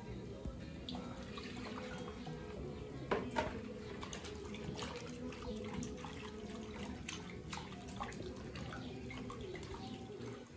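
Water splashing and dripping as a bunch of cilantro is washed by hand in a clay bowl: water poured in from a plastic pitcher at the start, then the leaves swished and rubbed in it. There are two louder splashes about three seconds in.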